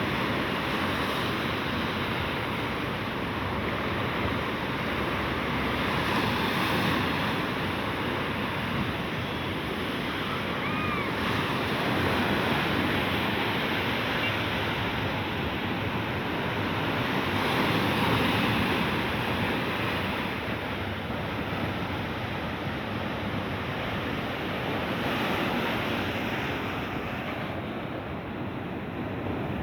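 Sea surf washing onto the shore, the rush of the waves swelling and easing every few seconds, with some wind on the microphone.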